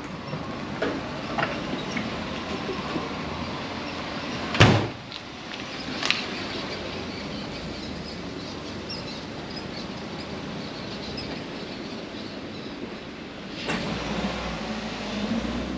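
Two sharp bangs about a second and a half apart, about five seconds in, from a small box delivery truck's rear cargo doors being handled, over steady street background noise. A low rumble rises near the end.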